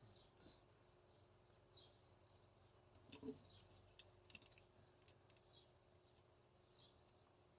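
Near silence, broken by faint small clicks of parts being handled, and a few faint high bird chirps, briefly quicker about three seconds in.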